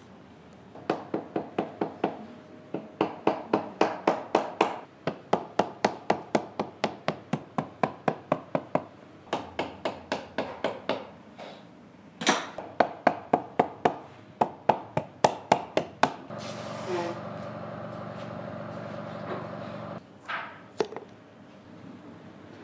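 A shoe repairer's hammer striking rapidly, about four to five blows a second, in runs with short pauses. Near the end it stops and a steady machine hum runs for about four seconds.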